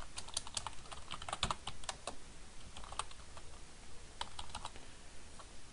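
Typing on a computer keyboard: a quick run of key presses over the first two seconds, then a few scattered ones.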